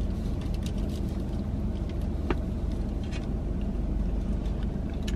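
Steady low rumble inside a parked car's cabin. A few faint mouth clicks come from biting and chewing a deep-fried mozzarella stick.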